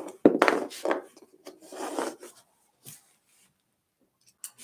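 Handling noise of someone rummaging: a quick run of rubs and knocks over the first two seconds or so, then quiet apart from a couple of faint clicks.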